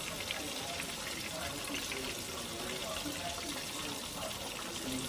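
Flour-dredged white snapper deep-frying in hot oil in a cast-iron skillet: a steady sizzle with scattered crackles and pops.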